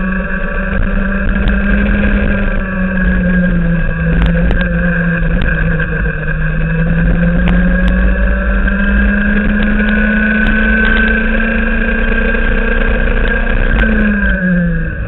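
Racing kart engine at full power, heard from the kart: its pitch sags through a corner, climbs steadily along the straight, then falls away sharply near the end as the throttle is lifted.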